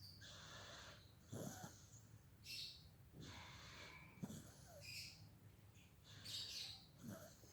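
A baby snoring: faint, wheezy, rattling breaths repeating about once a second.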